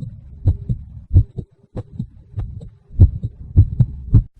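Heartbeat sound effect: low double thumps (lub-dub) in a fast, steady rhythm, about six beats.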